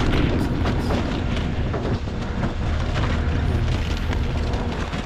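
Tractor engine running steadily with a low hum, under a rough rumble of wind on the microphone. Scattered knocks are heard as cabbage heads are loaded onto the harvest conveyor.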